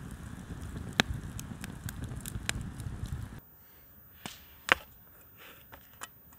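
Campfire crackling, with sharp pops over a low steady rush. The sound cuts off abruptly a little over three seconds in, and a few separate sharp clicks and knocks follow, the loudest about a second later.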